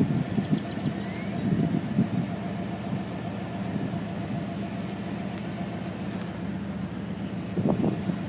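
A steady low hum of an idling vehicle engine, unchanging throughout.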